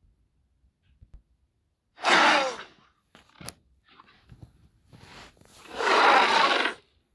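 Utahraptor sound effect: two harsh, breathy hissing calls, a short one about two seconds in and a longer one near the end, with faint clicks and snorts between.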